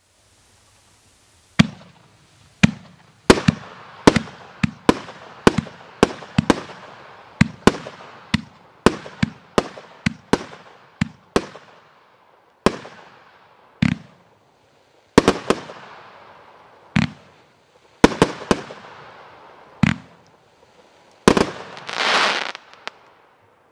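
500-gram consumer fireworks cake firing: after a second and a half of silence, a run of about thirty sharp reports, roughly one or two a second, each trailing off in a fading hiss of burning stars. Near the end comes a denser, longer burst of about a second.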